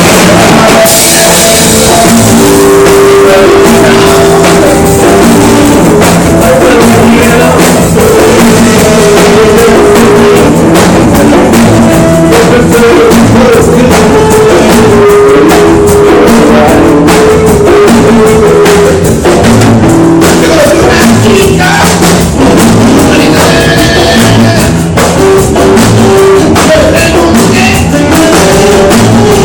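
Loud rock music with drums, guitar and singing, played at full volume through speakers.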